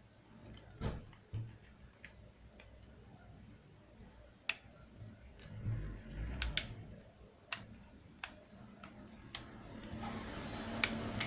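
Irregular sharp clicks and a few dull knocks from a Huawei P8 Lite smartphone and tools being handled during a battery replacement.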